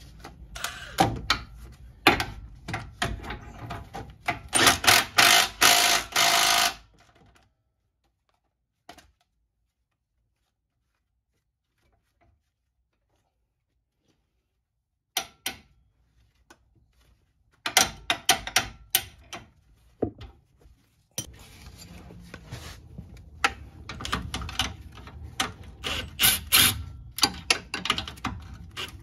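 Half-inch ratchet clicking in quick runs as the front lower control arm bolts are tightened, dropping out for several seconds midway.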